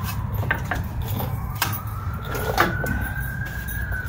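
An emergency-vehicle siren wails in the background, its pitch sliding slowly down, then up, then down again. A few sharp clicks and knocks come through over it.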